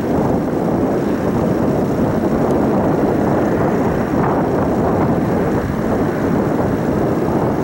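Twin-engine jet airliner on the runway, its engines giving a steady, loud rumble as it rolls toward the listener, with wind buffeting the microphone.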